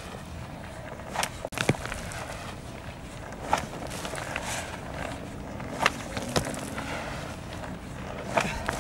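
Snowballs smacking against a rendered wall, about six sharp hits spaced one to two seconds apart.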